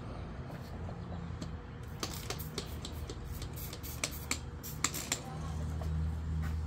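Trigger spray bottle squirting leak-check bubble solution onto brazed copper joints under nitrogen pressure: a string of quick trigger clicks and short spray hisses in the middle, over a low steady hum that grows louder near the end.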